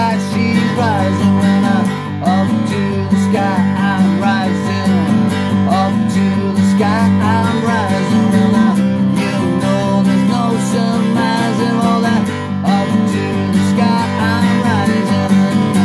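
Acoustic guitar strummed in an instrumental passage, chords ringing on steadily with no singing.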